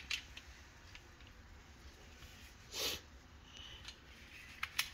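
Quiet room with faint handling sounds: a short, soft breath about three seconds in and a few light clicks near the end.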